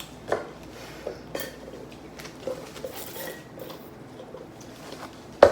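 Scattered light clicks and taps of dishes and utensils being handled while eating a seafood boil, with one louder knock near the end.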